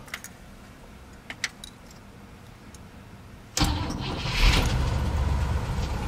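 Faint clicks of the key at the ignition, then about three and a half seconds in the 1957 Cadillac Series 62's 365 cubic-inch overhead-valve V8 starts right up. It flares briefly about a second later and settles into a steady idle, heard from inside the cabin.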